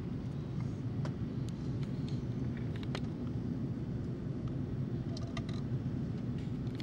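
Steady low rumble of a jet airliner's engines and airflow heard inside the passenger cabin in flight, with a few faint clicks.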